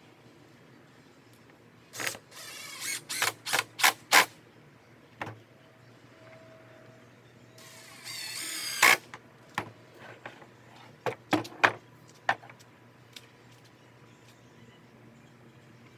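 Cordless power driver driving 2-inch screws into wood in short spurts of a whining motor that rises in pitch, with sharp knocks in between. There is a brief run early on and a longer one about halfway through.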